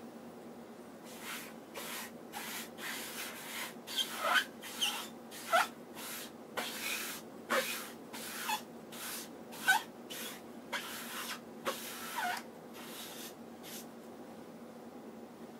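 Melamine sponge rubbed back and forth over an oil-painted canvas in short, uneven strokes, several with small falling squeaks. The sponge is scrubbing off a poppy-oil film that makes new paint bead up (hajiki). The strokes start about a second in and stop near the end.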